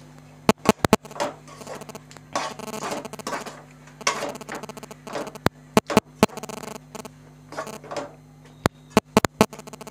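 Spoon stirring and scraping a thick gongura leaf mixture in a stainless steel kadai, with sharp clinks of metal on the pan in clusters about a second in, around the middle and near the end, over a steady low hum.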